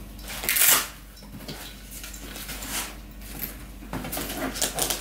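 Rustling and handling of a new drone shoulder bag and its packaging: a loud rustle about half a second in, then several shorter rustles and crinkles, more of them near the end.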